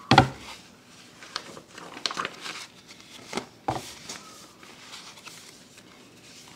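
A loud knock right at the start, then several softer clicks and short rustles over the next few seconds, in a small room.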